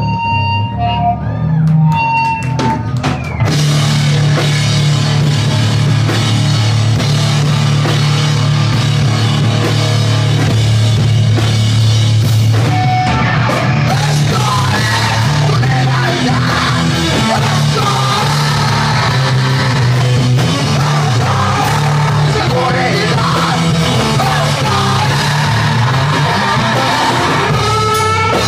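Live rock band playing loud, with yelled vocals over distorted electric guitars, bass and drum kit. After a few held notes, the full band comes in about three and a half seconds in.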